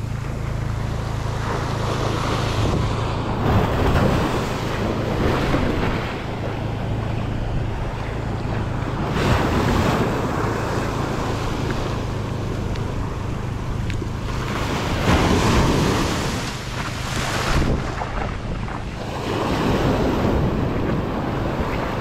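Ocean surf breaking and washing up over the sand, swelling and easing every few seconds, with wind rumbling on the microphone.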